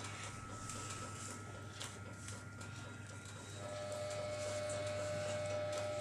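Steady low electrical hum, joined by a higher steady whine about three and a half seconds in, with faint scattered ticks.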